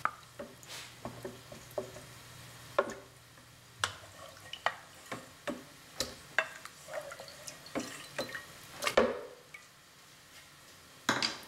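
Wooden spoon scooping boiled tomatoes and chiles out of a bowl of their cooking water into a plastic blender jar: scattered clinks and knocks with wet drips and plops. The loudest knock comes near the end.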